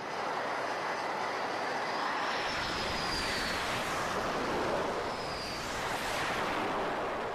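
Jet engines of carrier fighter jets running on the flight deck: a steady, noisy rush with a faint high whine that rises and falls twice.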